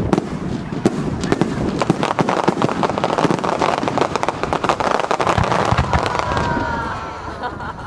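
Starmine fireworks barrage: a dense, rapid volley of shell bursts and crackling, thinning out near the end.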